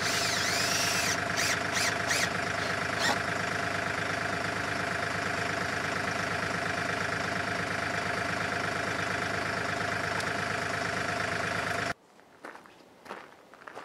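Compact tractor engine idling steadily, with a few sharp clicks and high squeaks in the first three seconds. The engine sound cuts off abruptly about twelve seconds in, leaving faint scattered knocks and scuffs.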